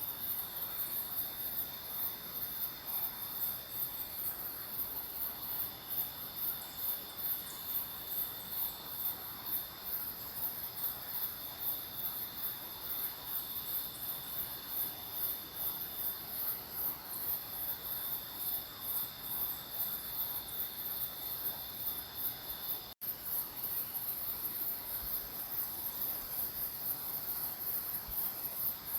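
Night insect chorus of crickets and similar insects: a high, rapidly pulsing chirring over a couple of steady high-pitched whines. It cuts out for an instant about three-quarters of the way through.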